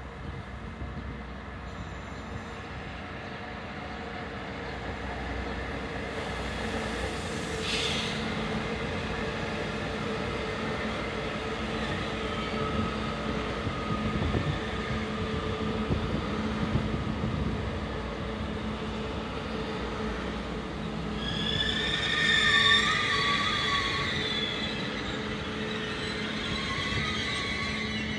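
Turkish State Railways high-speed train running along the station track, a steady mechanical hum that grows slowly louder. About three quarters of the way through come high, wavering wheel squeals, the loudest part.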